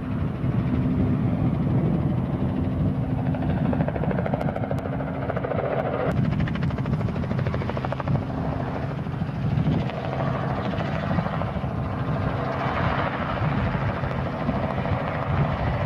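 Robinson R44 piston-engined helicopter flying low and banking, its main rotor beat and engine running steadily throughout.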